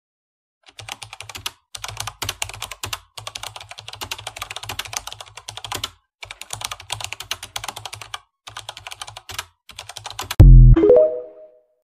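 Rapid clicking like fast typing on a keyboard, in bursts separated by short pauses. Near the end comes a single loud low thump with a short ringing tone that dies away.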